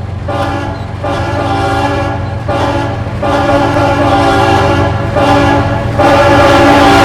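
Train horn sounding a series of blasts, each about a second long with short breaks between, getting louder toward the end. A steady low rumble runs underneath.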